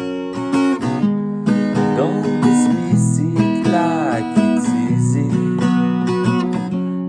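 Acoustic guitar strumming chords steadily. A wavering, bending melody line sounds above it for a couple of seconds in the middle.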